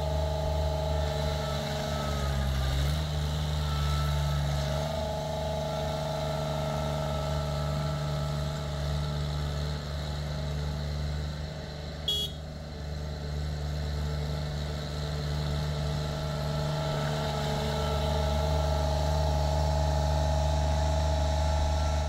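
Perkins three-cylinder 1.1 L diesel of a mini tracked skid steer loader running steadily as the machine is driven, its engine note dipping and rising again about two to three seconds in. A short sharp chirp stands out about midway.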